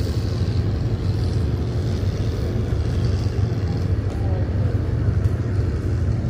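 An engine running steadily at constant speed: a low drone with a noisy rush above it, with no change in pitch.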